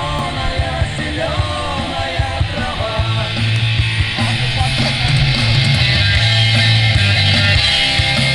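Loud rock music with yelled vocals and heavy bass, played on a car's audio system; it gets louder and fuller about five seconds in.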